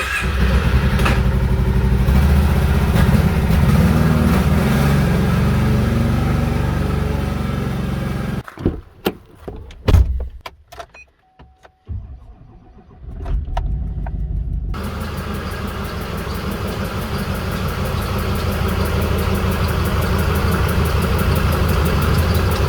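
2008 Chevrolet Duramax turbodiesel V8 running as the truck is driven in. It stops about eight seconds in, followed by a few clicks and a loud knock, then runs again from about thirteen seconds with a fast ticking over the engine note. The owner suspects a misfiring injector and a major exhaust leak at the driver's side manifold.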